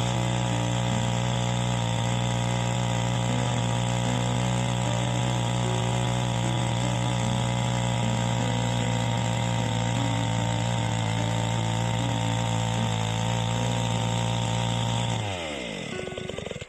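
A small engine running steadily at one even speed, then switched off about fifteen seconds in, its pitch falling as it winds down.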